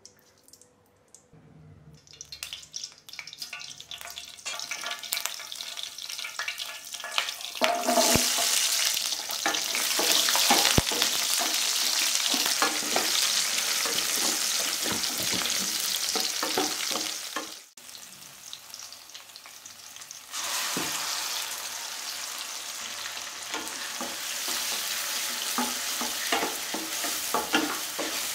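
Frying in a steel kadai: hot oil with crackling seeds, then a loud steady sizzle as shallots are fried and stirred with a spatula. After a short break, tomatoes frying and being stirred take up the sizzle again.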